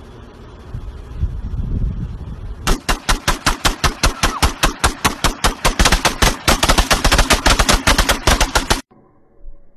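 Automatic rifles firing in long rapid bursts, several shots a second, starting nearly three seconds in and cutting off abruptly near the end. Before the firing there is a low rumbling noise.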